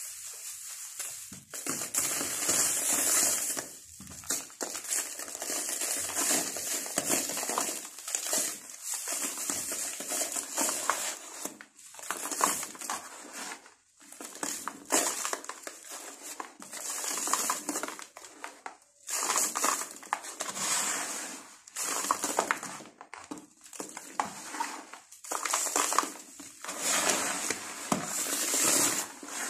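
Dry sand-cement lumps crushed and crumbled between the hands, a gritty crunching that comes in repeated bursts with short pauses between them.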